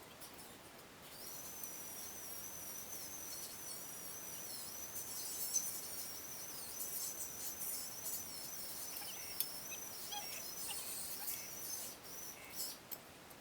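Steady high-pitched trilling of insects in the background, with a few faint light clinks in the last few seconds.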